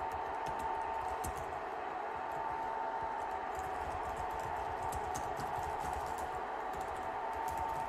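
Light, scattered clicks of typing on a computer keyboard over a steady background hum with a constant tone.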